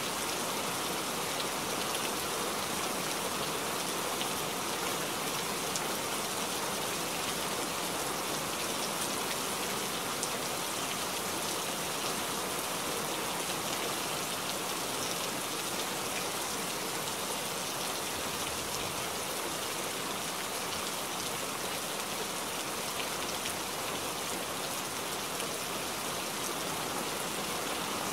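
Steady rain falling: an even hiss of rain with fine scattered drop impacts, unchanging in level.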